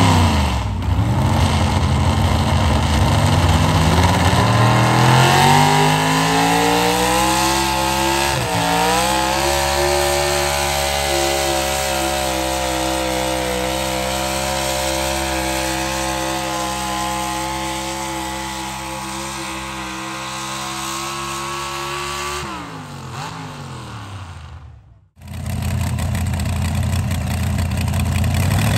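Modified V8 pulling-tractor engine at full throttle pulling a weight-transfer sled. The revs climb steadily over the first eight seconds, hold high through the pull, then fall away quickly about 22 seconds in as the driver lets off. Near the end another modified V8 tractor engine is idling.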